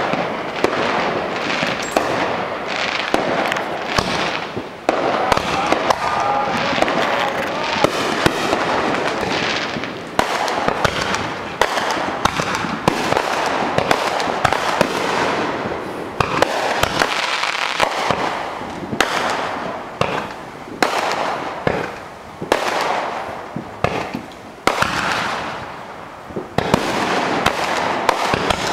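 Aerial fireworks display: a rapid barrage of shell bangs and pops over dense crackling, with many sharp reports in quick succession that ease off briefly a couple of times before picking up again.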